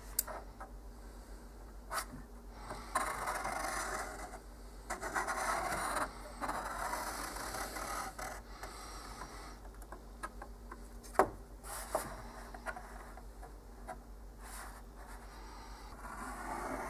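A pointed metal scribing tool scraping across a hard surface in strokes of a second or so, with about four sharp clicks as it is set down. Near the end it scores along a wooden straightedge on stretched vellum.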